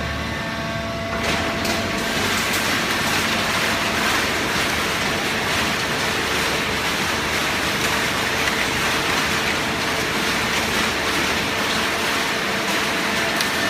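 Hydraulic waste-paper baler running: a steady mechanical din with a faint hum, getting a little louder about a second in, with occasional light clicks.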